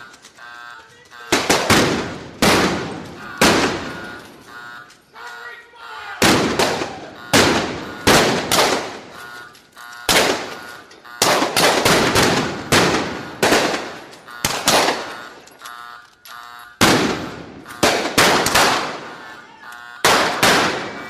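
Gunfight sound effect: repeated gunshots, some single and some in quick bursts, each trailing off in an echoing decay, coming in clusters with short lulls between them.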